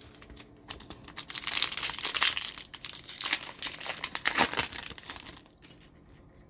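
Plastic trading card pack wrapper being torn open and crinkled in the hands, a dense crackling that fades out about five seconds in.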